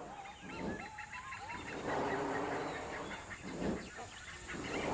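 Hornbills calling: short honking calls, with a busy chatter of higher, shorter calls behind them.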